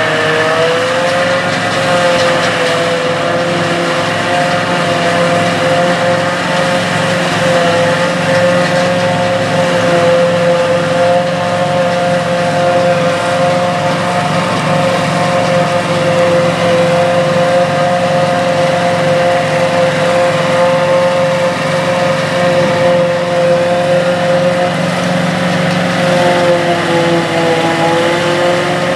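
Farmall tractor engine running steadily under load, driving a pull-type forage harvester chopping standing corn. The engine and the chopper make one continuous drone with a steady pitch that hardly changes.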